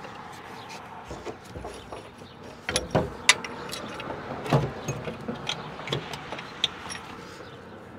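Scattered metallic clicks and knocks of hand tools and steel parts being handled under a tow truck's boom, with the sharpest few clustered between about three and five seconds in.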